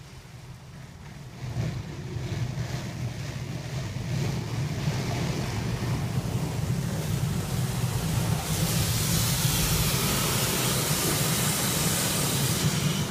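Wesumat soft-wash car wash brushes turning against the car's glass and bodywork, heard from inside the cabin: a steady swishing wash of brushes and water over a low hum. It grows louder about a second and a half in, and a loud hiss sets in from about eight and a half seconds until shortly before the end.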